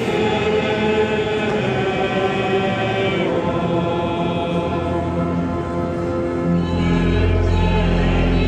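Church choir singing a slow, sustained hymn during mass. A deep, steady bass tone joins in about seven seconds in.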